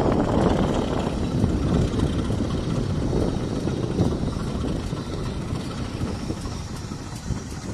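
Heritage passenger train running past at a level crossing, led by a Class 33 'Crompton' diesel locomotive, with the coaches' wheels on the rails. The sound is steady and slowly fades as the train moves away.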